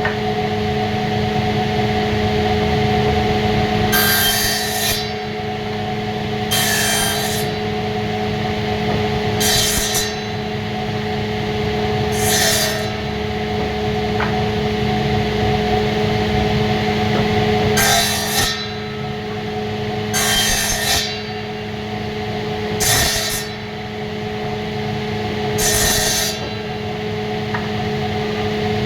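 Woodworking shop sound: a steady machine hum, with eight short, harsh cutting or rubbing passes into wood a few seconds apart.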